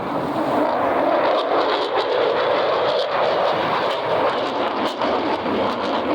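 F-35 Lightning II's single F135 turbofan heard as a loud, steady jet noise from the aircraft flying its air show display.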